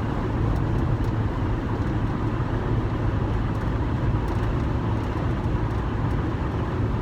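Steady low rumble with a constant hum, the background noise of a running motor vehicle.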